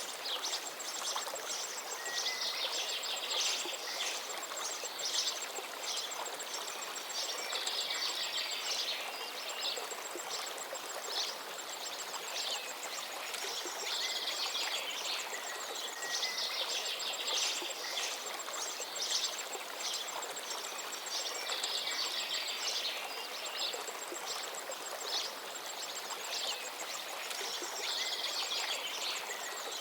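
River water flowing steadily, with a bird singing a short phrase that comes again every few seconds, and a faint, fast, high ticking running underneath.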